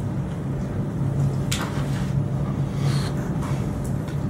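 Steady low hum of a small meeting room's background noise, with two brief sharp sounds, one about a second and a half in and one about three seconds in.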